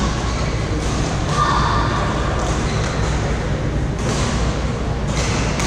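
Badminton rally on a synthetic court in a large echoing hall: several sharp racket hits on the shuttlecock and a drawn-out squeak of sneakers on the court mat about a second and a half in, over steady hall noise.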